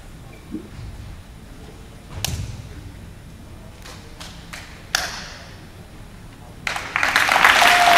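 A few dull thuds and a sharp slap from a wushu competitor's stamping feet and striking hands on the carpeted competition floor, in a large, echoing hall. Near the end, loud applause breaks out.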